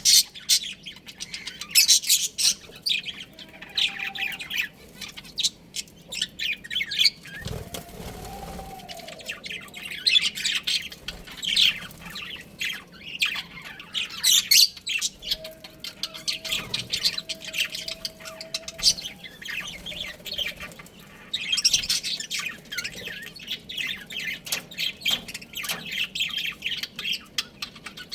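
Budgerigars chattering and chirping in rapid, overlapping bursts of high tweets, with short lulls between spells of busy chatter.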